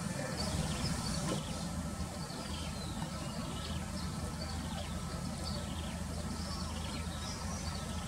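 Diesel engine of an 18-wheel dump truck and trailer running at low revs while it reverses, a steady low drone. Short high chirps repeat over it.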